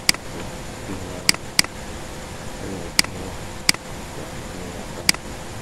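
Computer mouse button clicking: six short, sharp clicks at uneven intervals, over a steady background hiss and hum.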